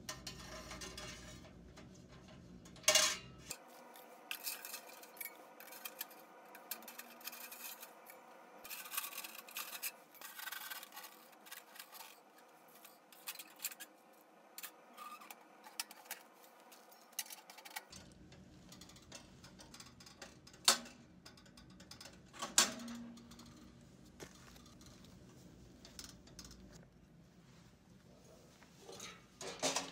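Steel parts of a homemade camping wood stove and its stovepipe sections clinking and clanking as they are handled and taken apart. There are scattered light knocks, with sharper metal knocks about three seconds in and twice about two-thirds of the way through.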